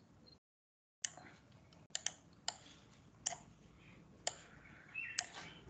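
Faint, irregular single clicks from computer use, about seven in five seconds, with light hiss between them.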